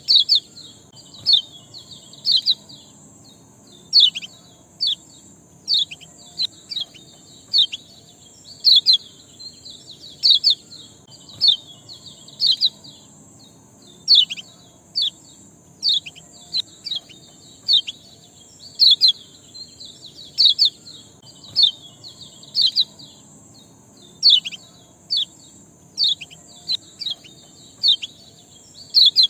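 A small songbird giving short, sharp chirps, one or two a second at an irregular pace, in a 'ciak' lure recording (pancingan) played to set a lazy cage bird singing. A steady high hiss runs behind the chirps.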